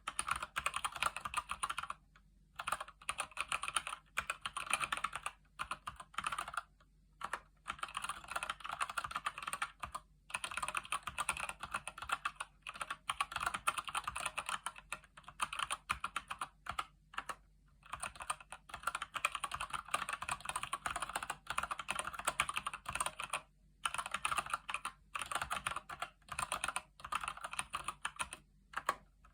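Typing on a Keychron C1 mechanical keyboard with Gateron Brown switches: rapid runs of key clicks broken by short pauses, about two seconds in, near seven seconds, about ten seconds in and near twenty-four seconds.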